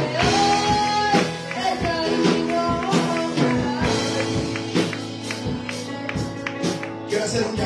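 Worship music: sustained keyboard chords over a steady percussion beat, with a voice singing over it in places.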